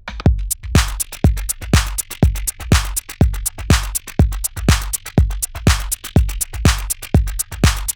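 Electronic dance music with a steady drum-machine beat: a kick drum about twice a second with hi-hats in between.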